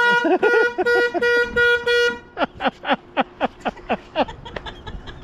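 Small electric car horns wired into an old Toyota Tercel's light circuits, honking in about six short, quick toots over the first two seconds. The toots are followed by a string of quick downward-sliding sounds, about three a second.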